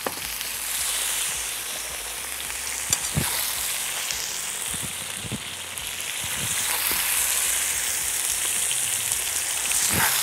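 Pork, potatoes and vegetables sizzling steadily in a cast-iron kazan over a fire, with a few short knocks and scrapes of a metal skimmer against the pot, about three seconds in and again near the end.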